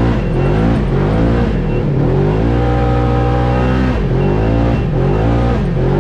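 Polaris RZR side-by-side's engine revving up and dropping back again and again as it is driven hard on a dirt track. It holds high and steady for about a second and a half in the middle, then dips and climbs again.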